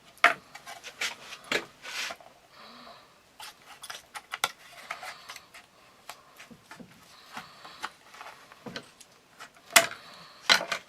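Trimming and handling a piece of HDPE plastic with hand tools: irregular small clicks and light scraping, with a sharper click near the end.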